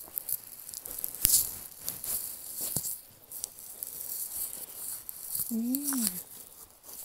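Footsteps pushing through tall grass and undergrowth on an overgrown forest path, with leaves and stems brushing and rustling in uneven bursts and now and then a sharp snap or click. About six seconds in comes a short hummed voice sound that rises and falls.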